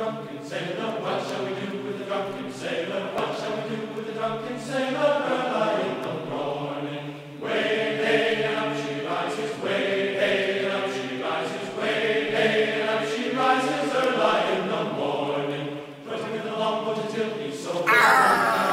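Music: a group of voices singing together in chorus, in phrases of a few seconds each with short breaks between them.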